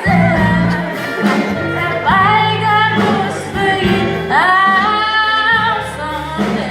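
Music with a solo singing voice: three long held notes, each sliding up into pitch at its start, over a low instrumental accompaniment.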